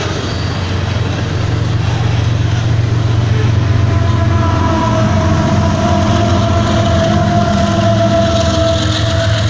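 A freight train's coal hoppers roll past close by, their wheels rumbling and clattering on the rails. From about a third of the way in, the steady drone of the train's two rear CSX diesel locomotives rises over it as they pass.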